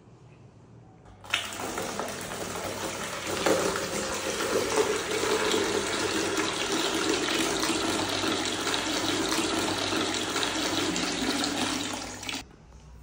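Water from a wall tap pouring into a plastic basin. It starts suddenly about a second in, runs steadily, grows fuller a couple of seconds later, and cuts off shortly before the end as the tap is shut.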